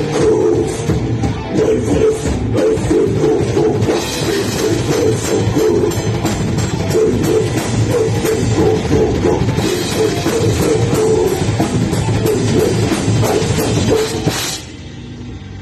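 Live heavy metal band playing: distorted electric guitars, bass and a drum kit. About a second before the end the full band drops out suddenly, leaving a quieter, thinner sound.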